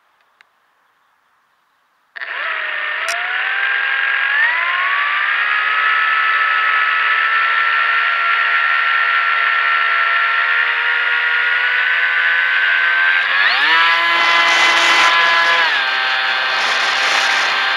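Electric pusher motor and propeller of an FX-61 flying wing, heard from on board: it starts suddenly about two seconds in for the hand launch, rises in pitch and settles into a steady whine. Near the end the throttle is opened further, the whine climbing, dipping briefly and climbing again over a louder rush of wind.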